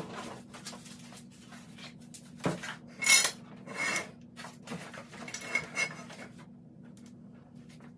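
Metal bicycle parts and tools clinking and rattling in a few short bursts, the loudest about three seconds in, over a steady low hum.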